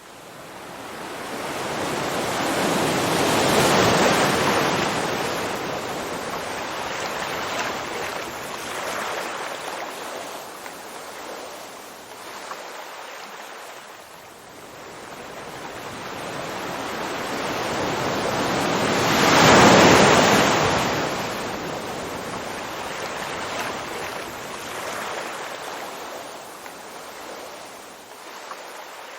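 Ocean waves breaking on a shore: a steady surf hiss with two big swells, one building to a crash about four seconds in and a louder one about twenty seconds in, each dying away into a long fizzing wash.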